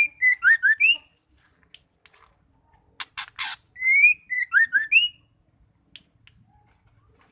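Female white-rumped shama calling: a pair of harsh, rasping notes followed by a quick run of clear whistled notes, some rising and some dropping. The call repeats about every four seconds, with the harsh pair about three seconds in.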